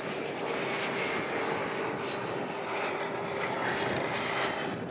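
HondaJet's twin GE Honda HF120 turbofan jet engines running as it lands on the runway: a steady rushing jet noise with a faint high whine that slowly falls in pitch.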